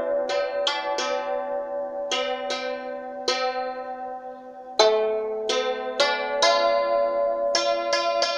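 Santoor, the trapezoid hammered dulcimer, struck with curved wooden hammers, each note ringing on. The notes come in quick runs, thin out and fade for about a second and a half in the middle, then resume with a strong stroke and quicker notes near the end.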